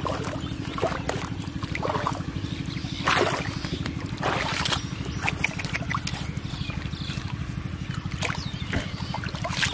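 Water splashing and sloshing as a caught fish is handled in a plastic bottle trap and tipped into shallow muddy water, the loudest splashes about three and four and a half seconds in. A steady low puttering, like a small engine, runs underneath.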